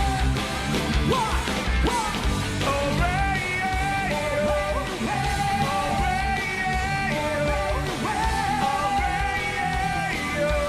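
Rock band playing live at full volume: drums and bass under electric guitar, with a long held melody line gliding between notes.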